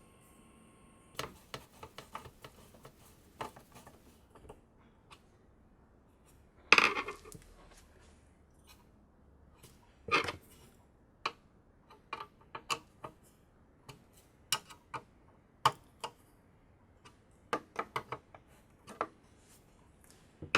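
Irregular clicks and light metallic clinks of small hard parts and tools being handled, with a louder clatter about seven seconds in and another near ten seconds.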